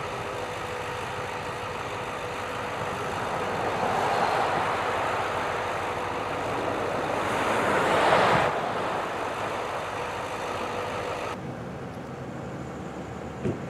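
Truck engines idling with a steady hum, while vehicle noise swells twice, the louder swell about eight seconds in and stopping abruptly. Near the end the sound drops to a quieter, steady background hum.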